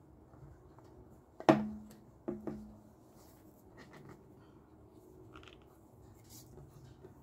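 Tanto being sheathed into its scabbard: two sharp knocks, each followed by a brief low ring, as the guard seats against the scabbard mouth, then a few faint clicks of handling.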